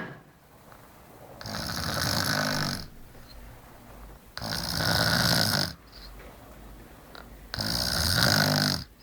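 A sleeping person snoring: three snores about three seconds apart, each lasting about a second and a half.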